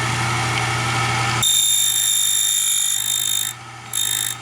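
Framon FRA-2D key code machine running, its motor humming, then its cutter biting into a key blank with a high-pitched whine from about a second and a half in. The whine breaks off near the end, comes back briefly, and stops.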